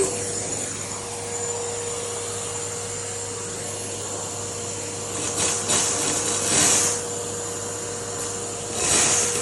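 Henry canister vacuum cleaner running steadily with a constant motor whine, with louder hissing surges about five, six and a half, and nine seconds in as the nozzle sucks up spilled cereal.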